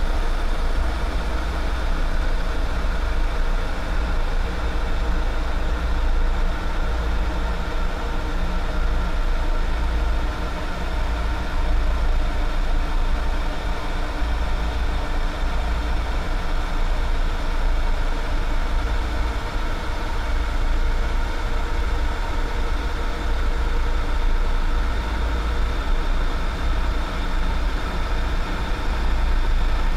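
A steady, deep rumbling drone with many sustained tones layered above it, unchanging throughout: a low, vehicle-like ambient soundtrack of the sort a metro train makes, laid over slow-motion footage.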